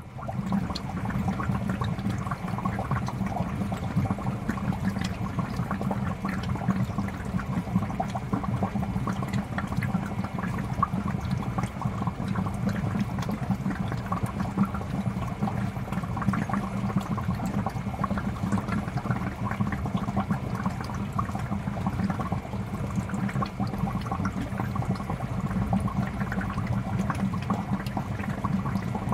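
Aquarium fish tank water bubbling steadily, a dense patter of small bubbles over a low, steady hum.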